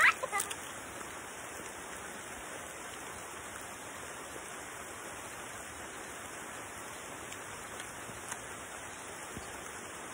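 Steady, even hiss of rain, with a few crisp crunches of a raw vegetable stalk being bitten at the very start.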